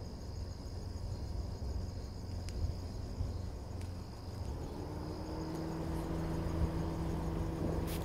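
Insects singing in a steady, even high trill over a low hum. A steady low tone joins about halfway through.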